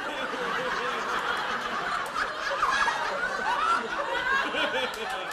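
Audience laughing at a stand-up punchline, many voices laughing together at once.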